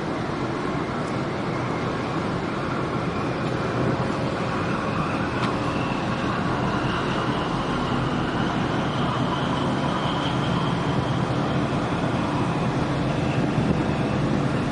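Steady rumble of ship engines and churning water as a large container ship passes close by, with a faint whine that slowly rises in pitch.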